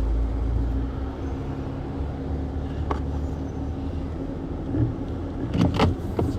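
Jeep engine running at low speed while crawling over a rutted trail, with a sharp knock about three seconds in and a cluster of knocks and clunks near the end.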